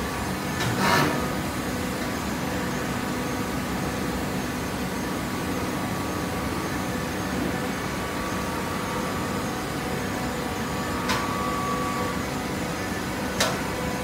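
Automatic horizontal hydraulic baler running: a steady hum made of several held tones from its motor and hydraulic pump. A short noisy burst comes about a second in, and two sharp clacks near the end.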